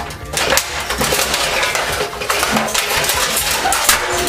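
Metal clinking and scraping as the parts of an Xbox 360 console are pried and lifted apart: a steady run of small clicks and knocks.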